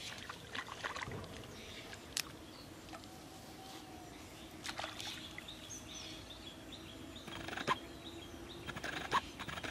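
Quiet outdoor pond-side ambience: a few brief knocks and splashes as a fish is hooked and lifted out of the water on a bamboo pole, with faint bird chirps.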